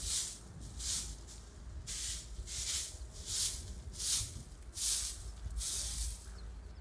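Short-handled grass broom sweeping a bare earth yard: a dry swish with each stroke, about eight strokes a little under a second apart.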